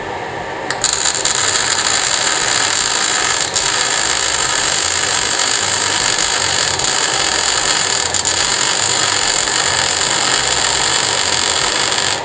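MIG/MAG welding arc on 3 mm steel angle, shielded with an 85% argon / 15% CO2 mix at 5 litres per minute. It strikes about a second in and burns steadily until it stops just before the end. The even arc is a sign that the gas coverage is still adequate despite the draught from a fume extractor, whose fan runs underneath.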